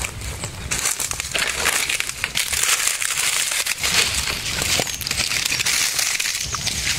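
A fire of dry palm fronds and leaves burning hard, with dense crackling and snapping over a steady hiss.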